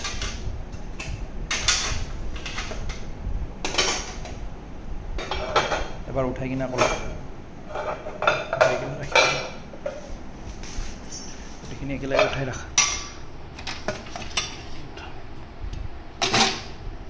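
Stainless-steel exhaust pipes and muffler clinking and knocking against each other and the scale as they are stacked onto a glass-topped weighing scale: irregular metallic clatter with a louder knock near the end.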